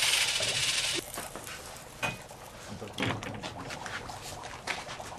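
Dry ice gripped in metal pliers and dropped into a glass of water, which bubbles and fogs, with scattered clicks and knocks. A loud hiss opens the stretch and cuts off suddenly about a second in.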